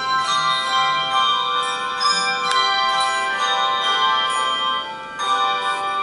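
Handbell choir playing a piece: several tuned hand bells rung together in chords that ring on and overlap, with the chord changing every second or so.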